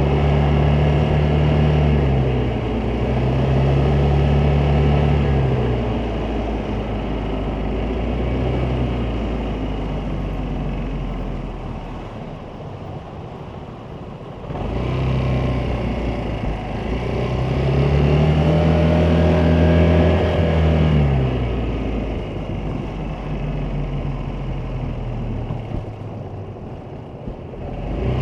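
Vespa GTS 300 scooter's single-cylinder four-stroke engine pulling away and easing off several times, its note rising and falling, with quieter spells of low running in the middle and near the end.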